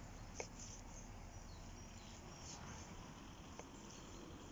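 Knife slicing grilled meat on a wooden cutting board: faint scraping of the blade and a couple of light taps on the board, the sharpest about half a second in.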